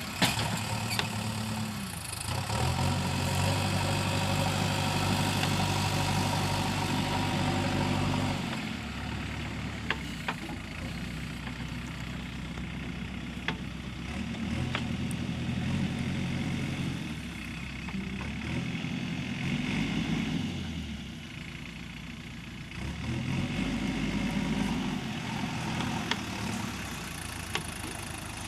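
JCB 3DX backhoe loader's diesel engine running hard for several seconds, then dropping back and rising and falling in speed as the machine works, with a few sharp knocks.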